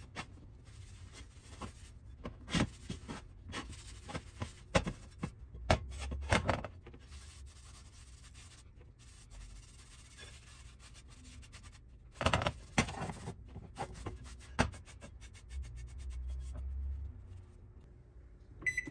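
A cloth towel rubbing and wiping over a cast iron Dutch oven lid, with sharp knocks and clinks as the iron is handled on a glass cooktop. Near the end an oven control panel gives a short beep as a button is pressed.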